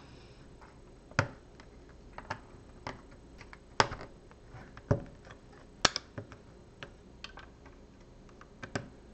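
LEGO bricks being handled and pressed together on a baseplate: irregular sharp plastic clicks and snaps, about eight clear ones with fainter taps between, the loudest about six seconds in.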